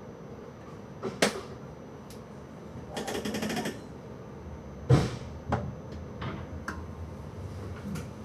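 Scattered clicks and knocks inside an electric train's driver's cab, with a short rattle about three seconds in and the loudest knock about five seconds in. A low rumble comes up as the train starts moving.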